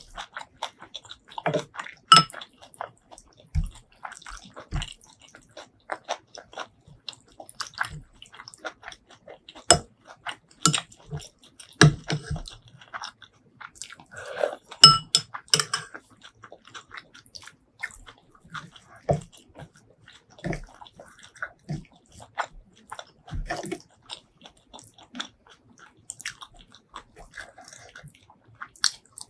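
Close-miked mouth sounds of someone eating shrimp curry with rice: wet chewing, smacking and biting, with irregular crunches and clicks.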